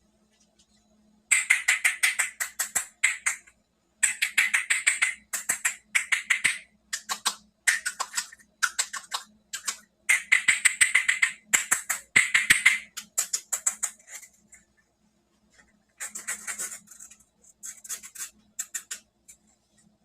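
Toy packaging being handled and opened close to the microphone: crisp crackling and crinkling in quick runs of a second or two, with short pauses between them.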